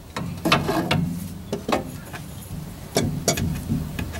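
Irregular clicks, knocks and rustles of hands working a rubber fuel line and the metal parts around it in a car's engine bay, several sharp ones about half a second in, around three seconds in and near the end.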